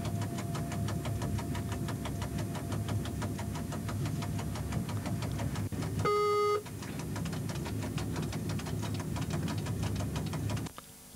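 Train running, heard from inside the driver's cab: a steady low running noise with a rapid, even clicking. About six seconds in, a short, loud pitched beep sounds for half a second. The running noise cuts off abruptly near the end.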